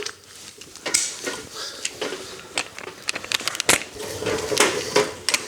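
Scattered metal clinks and knocks, irregular and spaced apart, of tools and a socket being handled against metal. There is no steady run of impact-wrench hammering.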